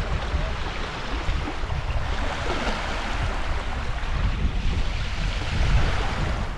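Small, shallow waves washing in over flat wet sand in a steady hiss that swells in the middle. Wind rumbles on the microphone underneath.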